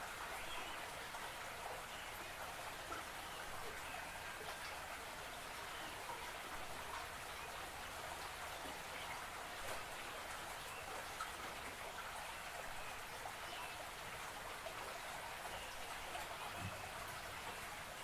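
Faint, steady water ambience beside a creek or marsh: an even patter and trickle with tiny ticks throughout, and a few faint, short chirps now and then.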